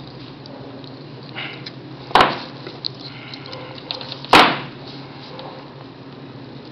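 Pliers snapping sharply twice, about two seconds apart, as they grip and bend the stainless-steel wire arm of an orthodontic Hyrax expansion screw. A few faint clicks sit between the snaps, over a steady low hum.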